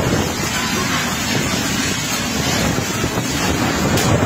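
Tornado winds blowing hard and steadily, buffeting the microphone in a continuous rushing noise.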